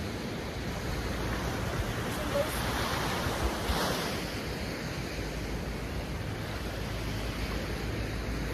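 Surf breaking and washing up the beach, with a steady low rumble of wind on the microphone; a wave swells louder about three seconds in, then falls back.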